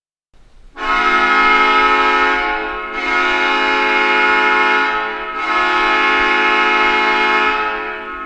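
Arena goal horn sounding a loud multi-tone chord in three long blasts that run into one another, then cutting off suddenly.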